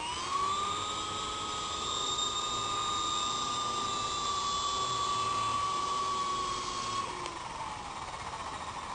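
Blade CP Pro electric RC helicopter's motor and rotor gearing whining at a steady high pitch, then dropping in pitch about seven seconds in as the rotor spools down.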